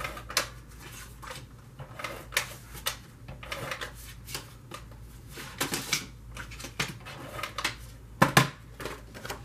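Cardmaking adhesive being applied to a paper piece: irregular short scratchy rasps and clicks, the loudest a pair near the end.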